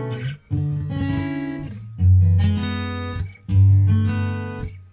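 Background music of strummed acoustic guitar, a new chord struck about every one and a half seconds.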